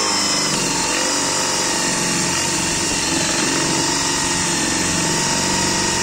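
DeWalt DCD777 20V cordless drill running steadily at its low speed setting, boring into a wood board with a dull Forstner bit that has no edge left and barely cuts.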